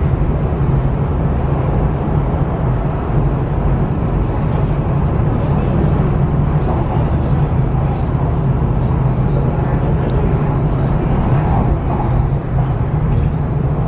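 MTR East Rail Line R-train electric multiple unit running at speed, heard from inside the train: a steady low rumble of wheels on track and traction equipment, with no stops or sudden changes.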